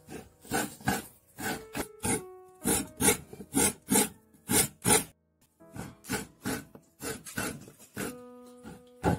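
Coconut being grated by hand over a metal pot: short rasping strokes, two to three a second, with a brief pause about five seconds in. Soft background music plays underneath.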